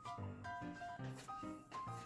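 Background music with a steady, bouncy beat and short pitched notes.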